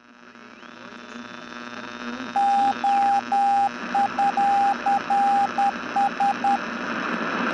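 Radio static swelling up from silence, with a tuning whistle that glides up, holds and slides back down. A single-pitched beep then keys on and off in long and short pulses, Morse code over the static.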